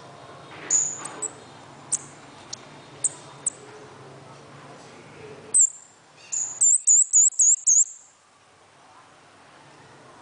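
Small caged songbird calling in thin, very high chirps: scattered single notes for the first few seconds, then a quick run of about five looping notes around seven seconds in.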